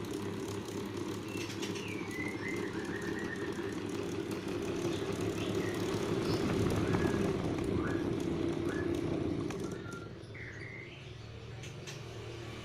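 Faulty electric fan without its guard running with a steady fluttering hum, its odd noise the sign of a fan that no longer runs normally; the hum drops quieter near ten seconds in. Birds chirp in the background.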